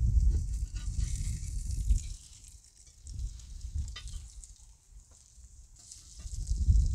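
Burger patties sizzling on a cast-iron grill pan over a wood fire, with a few clicks and scrapes as a metal spatula works the patties. Wind rumbles on the microphone, loudest in the first two seconds and again near the end.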